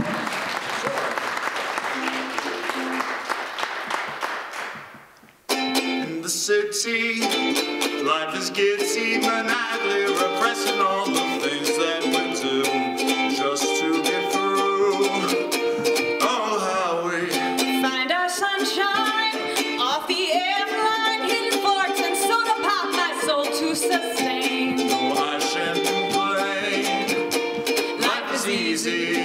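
Audience applause fading away, then, after an abrupt cut about five seconds in, a man and a woman singing together to a strummed ukulele.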